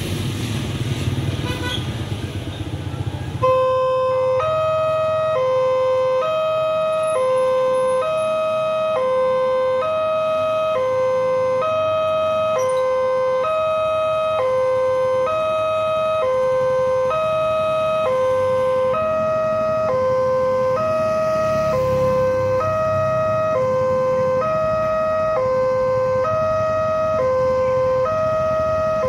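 Railway level-crossing warning alarm sounding an electronic two-tone, alternating high and low about once a second, the signal that a train is approaching and the barriers are closing. It cuts in about three and a half seconds in, over passing motorcycle traffic.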